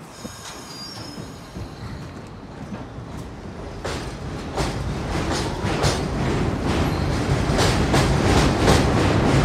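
R62A subway train pulling out of the station and picking up speed: a low rumble that grows steadily louder, with wheel clicks over the rail joints starting about four seconds in and coming faster and louder as it accelerates.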